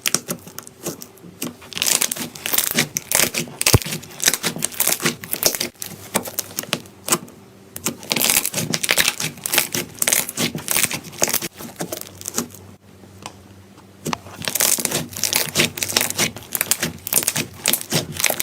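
Slime being squeezed and pressed by hand, with dense crackling and popping of small trapped air bubbles. It comes in bursts of a few seconds, with a short lull about two-thirds of the way through.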